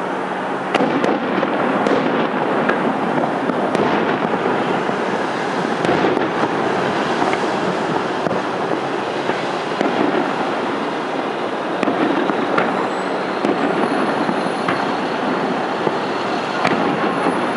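Fireworks display going off in a dense, continuous barrage of overlapping bangs and crackles, with no break.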